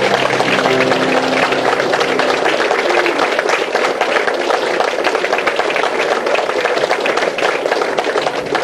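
An audience applauding, the cast's last sung notes dying away in the first moments.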